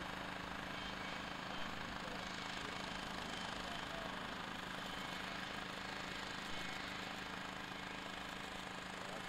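Engines running steadily: an even, unchanging drone with a constant low hum.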